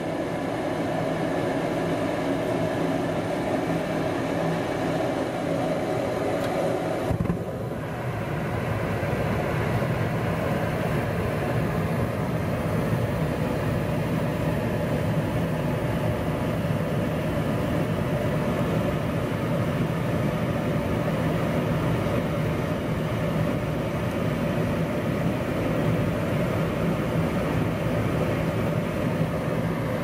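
Propane-fired Goodman 95-plus gas furnace burners igniting and then burning with a steady roar, over the hum of the draft inducer motor. The noise picks up in the first second as the flame carries across the burners and then holds steady, the burners staying lit on a freshly cleaned flame sensor instead of shutting off after a few seconds.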